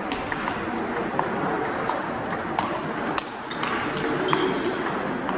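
Table tennis balls clicking sharply off bats and table tops during rallies: a string of short, irregularly spaced pings in a large hall.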